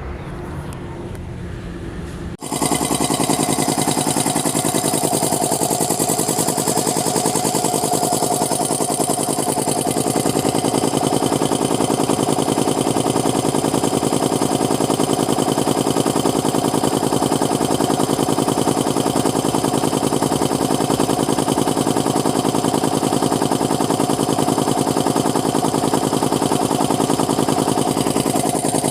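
A 3090 air compressor pump running, a loud steady mechanical clatter with a fast even pulse that comes in abruptly a couple of seconds in, over a quieter low rumble.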